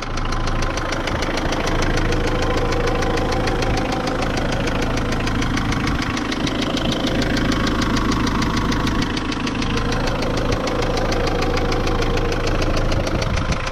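Mitsubishi L200 turbodiesel engine running steadily with a quite loud, rapid, regular knocking, ticking noise. The knock's cause is not yet found: the oil level is fine and a new cam belt did not cure it.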